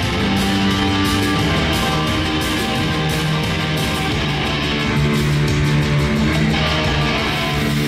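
Live rock band playing, an electric guitar to the fore with long held notes over a steady low end.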